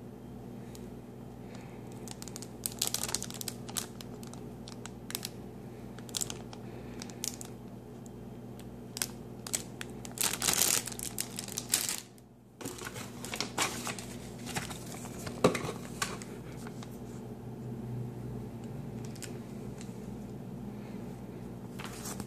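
Clear plastic bags holding plastic model-kit runners crinkling in irregular bursts as they are handled, over a steady low hum.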